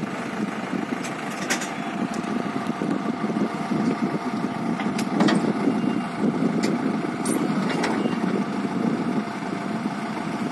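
Diesel engine idling steadily, with a few short clicks scattered through.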